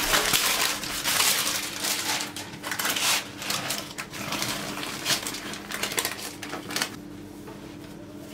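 Baking paper rustling and crinkling as it is peeled off the underside of a sponge cake and handled, in irregular rustles and light clicks; the rustling stops about seven seconds in.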